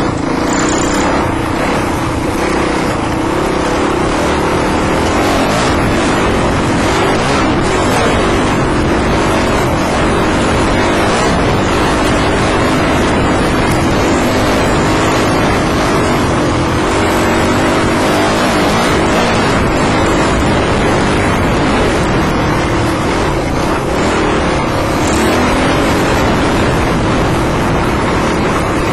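Dirt bike engine running under way on a trail, its revs rising and falling continuously.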